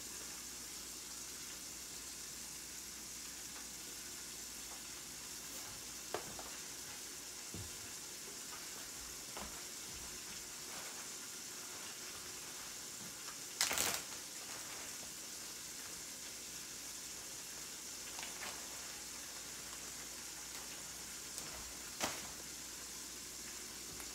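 Steady faint hiss of a pot of gungo peas in coconut milk heating on an electric stove. A few short sharp clicks come in, the loudest about halfway through.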